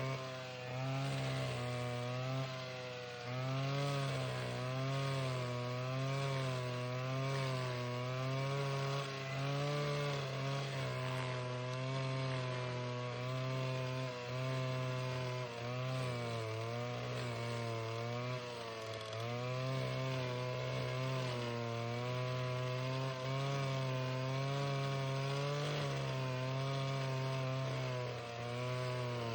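Alpine Magnum stump grinder, fitted with Greenteeth 900 series teeth, grinding out a willow stump: the engine runs at high speed, its pitch rising and falling about once a second as the cutter wheel works through wood and dirt, over a rough grinding noise.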